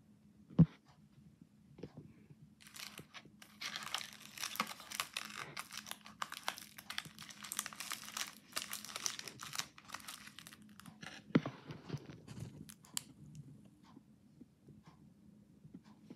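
Crinkling and rustling of plastic snack and gum packaging being handled, heaviest through the middle stretch. A single sharp knock, the loudest sound, comes about half a second in, and a smaller one about eleven seconds in.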